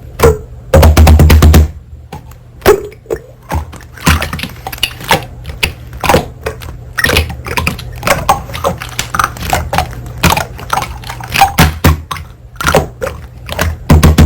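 Slime being pressed and poked by hand: a quick, irregular run of sticky clicks and pops, with a heavier stretch of squishing about a second in and again near the end.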